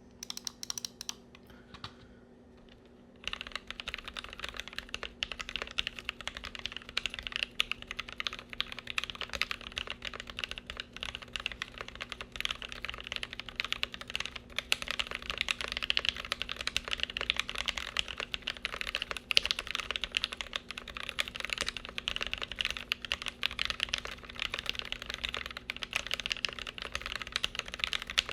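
Typing on a Glorious GMMK Pro mechanical keyboard with lubed OP Black linear switches, GMK Firefly keycaps, a polycarbonate plate and no foam. A few keystrokes, a short pause, then about three seconds in, fast continuous typing. The keystrokes sound flattened out, which the owner blames on the board itself.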